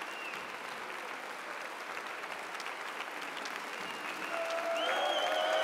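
Large audience clapping in sustained applause. Near the end, a few steady, held tones come in over the clapping and the applause swells slightly.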